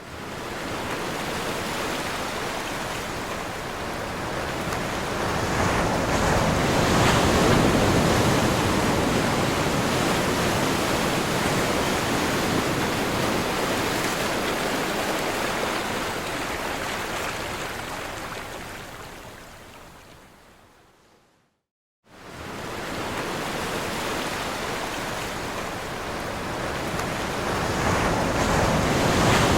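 Ocean waves breaking and washing in, a dense rush of surf that swells and ebbs. It fades out to silence about three quarters of the way through, then cuts back in abruptly and builds again.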